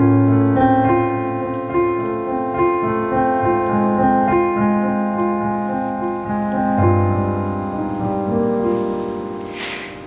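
Slow piano intro of a backing track: held chords and melody notes over low bass notes, fading a little toward the end. Near the end comes a sharp intake of breath into the microphone.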